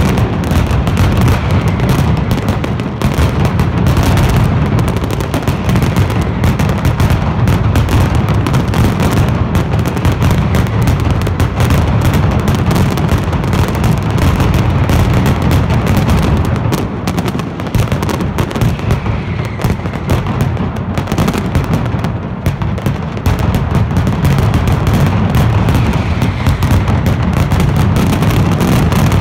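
Mascletà: a dense, continuous barrage of masclet firecrackers going off in rapid succession, very loud, dipping slightly for a few seconds past the middle before building again.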